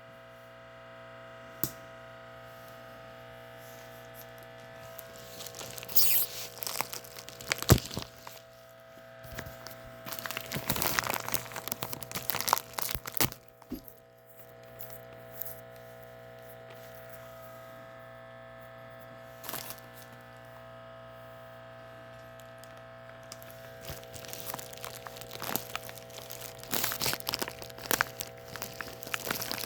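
Shipping package being opened by hand: packaging crinkling and tearing in irregular bursts with pauses between, busiest near the end, over a steady electrical hum.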